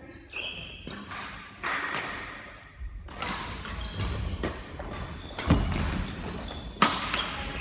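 Badminton doubles rally: a string of sharp racket strikes on the shuttlecock, the loudest about five and a half and seven seconds in, with thudding footfalls and short squeaks of court shoes on the wooden floor.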